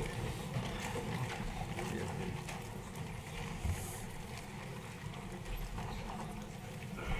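Low, steady hum of a large assembly hall, with faint scattered knocks and shuffles.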